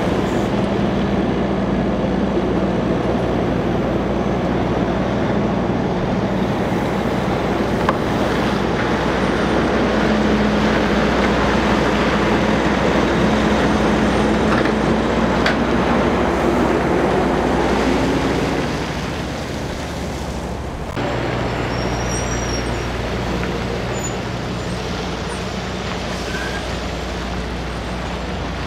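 Semi truck's diesel engine running steadily as it pulls a refrigerated trailer slowly past, loudest as the tractor goes by, then dropping off suddenly about two-thirds of the way through and leaving a lower, steady hum as the trailer passes.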